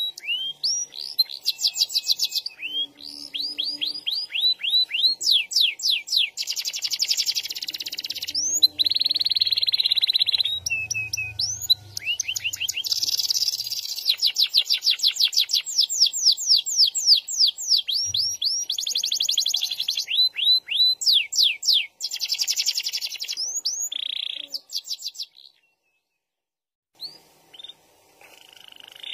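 Domestic canary singing a long song of fast rolls: runs of rapidly repeated, downward-sweeping high notes alternating with buzzy trills. It breaks off for about two seconds near the end, then starts again.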